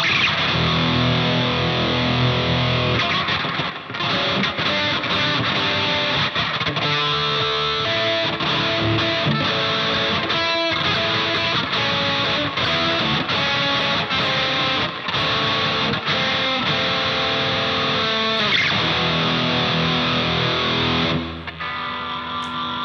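Electric guitar played with distortion through a guitar speaker: chords and riffs. A little after twenty seconds the playing stops and the last chord is left ringing.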